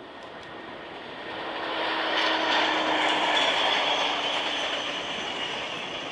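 Diesel-hauled passenger train passing on the rails, its coaches' wheels rolling and clattering. It swells to its loudest about two to four seconds in, then fades as the train moves away, with a faint high wheel squeal in the middle.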